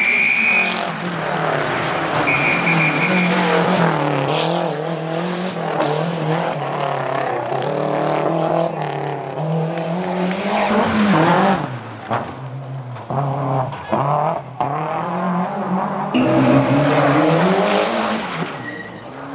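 Rally car engine revving hard under load, its pitch rising and falling with the throttle, broken by several abrupt lifts off the throttle in the middle and pulling hard again near the end. Two short high tyre squeals come in the first few seconds.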